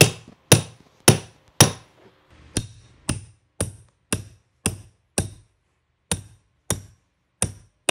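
Hammer striking a carpet tucker again and again, about two blows a second, driving the stair runner tight into the back of a stair tread. Each blow is a sharp knock with a brief metallic ring. The first few blows are the loudest.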